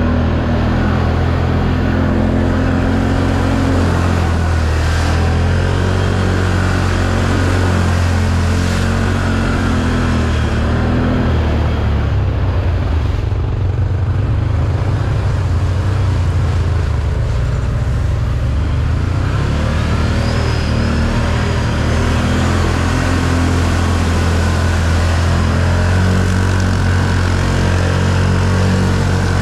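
Can-Am 1000 ATV's V-twin engine running steadily under way, its note rising and falling several times with the throttle, over a haze of wind and trail noise.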